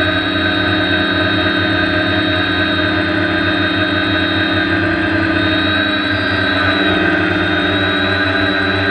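A multirotor drone's electric motors and propellers, heard up close from its onboard camera: a steady whine with several stacked tones, whose pitch shifts slightly a little past halfway as the throttle changes.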